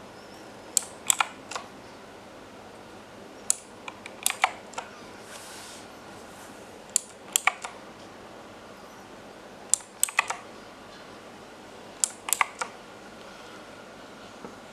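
Keys on an Imperion Mech 10 mechanical keyboard being pressed in five short groups of two to four sharp clicks, a couple of seconds apart: key combinations stepping through the keyboard's lighting profiles.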